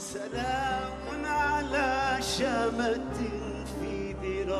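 Live Arabic song: a male singer's wavering, ornamented vocal line over held instrumental chords.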